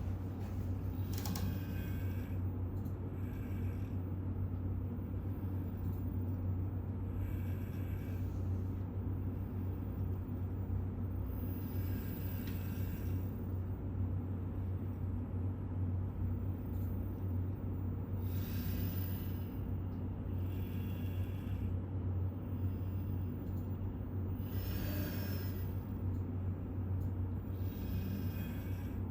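Robotic arm's joint motors whirring in short bursts every few seconds as the arm runs its taught sequence of moves, over a steady low hum.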